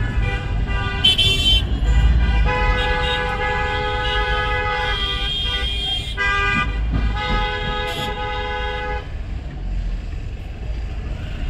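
Vehicle horns sounding in several long blasts, the longest about three seconds, over the steady low rumble of road traffic.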